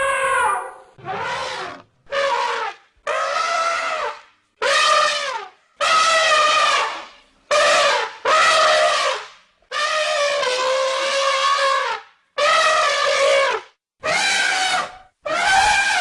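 Elephant trumpeting: about a dozen high, brassy calls in quick succession, most under a second long, with one longer call of about two seconds near the middle.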